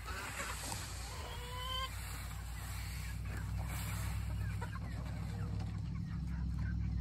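Chickens clucking, with one clear drawn-out call about a second and a half in, over a low steady rumble that grows louder near the end.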